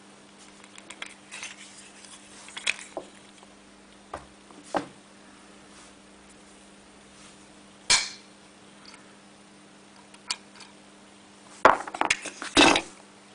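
Pair of strong disc magnets being handled, snapping together with sharp clicks now and then. The loudest click comes about eight seconds in, and a quick run of clicks comes near the end.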